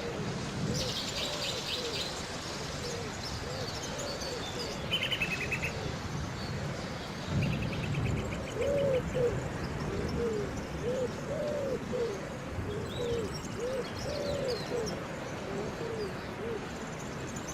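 Rainforest ambience: steady rain under many repeated low hooting calls, several a second and overlapping, with a few short rapid high trills from birds. Low rumbles swell up about seven seconds in.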